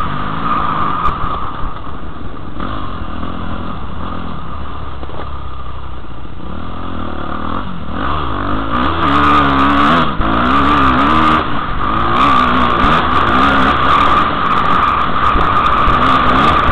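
Dirt bike engine heard from a helmet camera while riding a motocross track, its pitch rising and falling again and again with the throttle. Sharp clicks and rattles come in over the second half.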